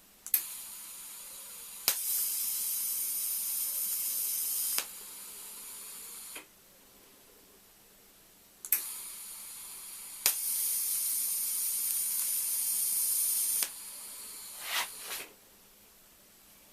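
TIG welding arc on stainless steel struck twice. Each time it starts with a sharp click and a hiss that steps up louder after about a second and a half, holds for about three seconds, then drops back and cuts off.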